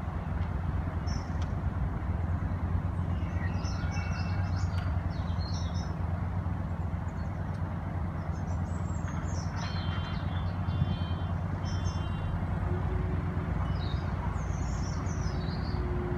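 A narrowboat's engine running steadily with a low, even hum. Small birds chirp over it several times.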